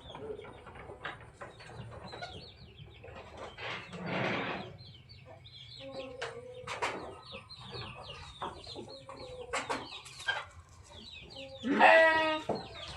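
Farm animals calling: many short, high calls throughout, with one louder call near the end.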